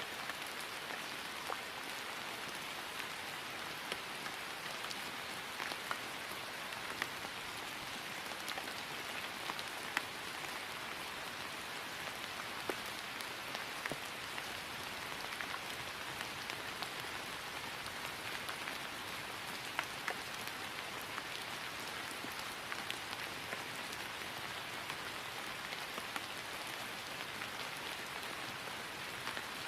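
Steady rain falling on grass, an even hiss with individual drops pattering through it.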